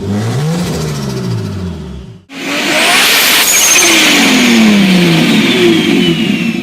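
A turbocharged car engine revving in quick rising and falling sweeps. Then, after a sudden cut about two seconds in, a louder car runs with a strong rushing hiss and several tones falling in pitch, among them a high falling whistle.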